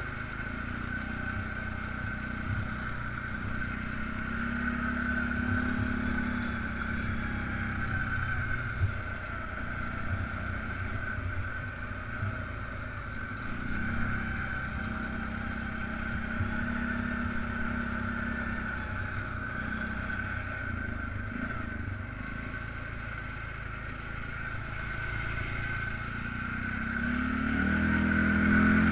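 Polaris Sportsman 500 ATV's single-cylinder engine running while riding, its pitch rising and falling with the throttle and climbing as it revs up near the end. A steady high whine runs alongside.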